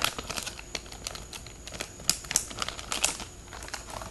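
Plastic bait packets crinkling and crackling as a hand shuffles through them on a table, with irregular small clicks and rustles.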